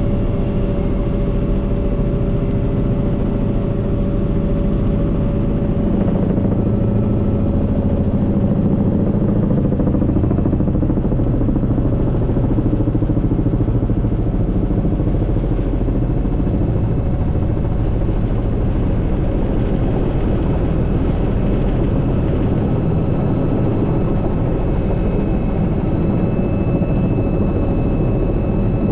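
Helicopter engine and rotor noise heard from inside the cabin: a loud, steady drone with a few constant whining tones on top.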